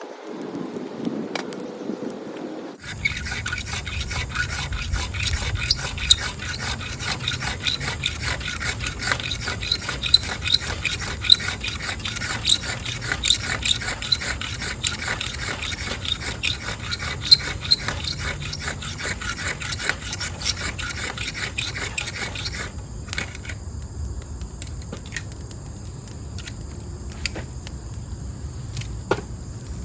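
Stanley 10-049 pocket knife scraping a dogwood stick in rapid, continuous strokes, rasping off fine hardwood shavings for tinder. The scraping stops abruptly about three-quarters of the way through, leaving crickets trilling.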